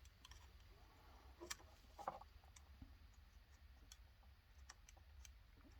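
Near silence with a low steady hum and a few faint, scattered clicks from small parts being handled.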